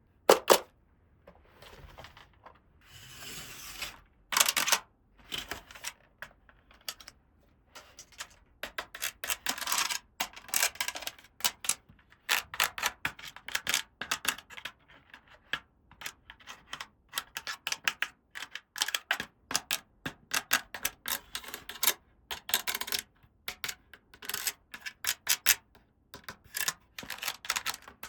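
Small plastic toy pieces being handled and set down: rapid, irregular clicks and taps, with a brief rustle about three seconds in.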